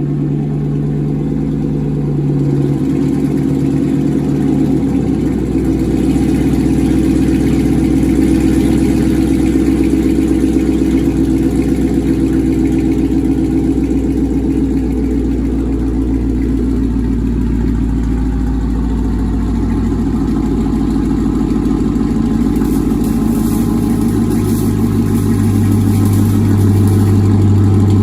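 Dodge Charger R/T's HEMI V8 idling just after a cold start through a straight-piped exhaust with the cats cut out, a deep, steady rumble. The sound grows a little louder near the end.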